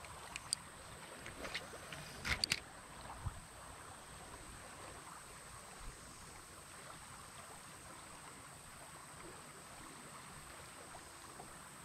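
Faint running river water, a steady quiet wash. A few light knocks and clicks come in the first few seconds, the loudest cluster about two and a half seconds in.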